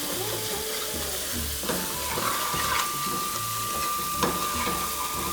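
Spiced onion-tomato masala sizzling in oil in a pan while it is stirred, with a couple of short knocks of the spoon against the pan. The masala is being fried until the oil separates.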